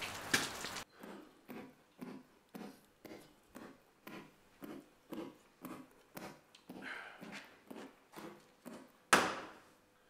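Footsteps on a hard floor, about two a second, in a small room. About nine seconds in, a loud sudden crack and short hiss of a beer can being opened.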